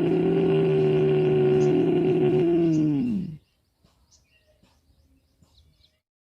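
A long, steady hum from a human voice, held at one low pitch, sagging in pitch as it stops about three seconds in. Faint bird chirps follow.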